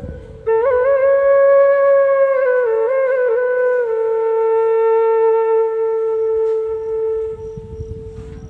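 Background music: a solo flute-like melody with small ornamented turns, settling into one long held note that fades away.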